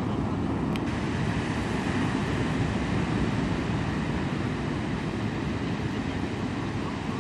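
Steady low rushing of wind buffeting the microphone, mixed with the wash of surf on the shore.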